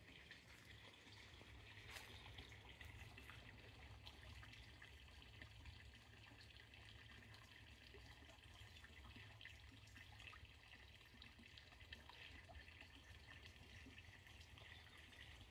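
Faint, steady trickle of running water with many small drips, over a low rumble.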